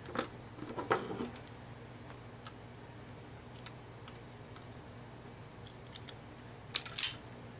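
Scattered light clicks and taps from small hand tools and a stripped feeder wire being handled, with a louder cluster of clicks near the end, over a steady low hum.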